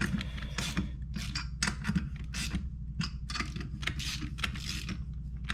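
A ratchet wrench clicking in short, repeated strokes, about three or four a second, as nuts are run down on the motorcycle engine before torquing, with a low steady hum underneath.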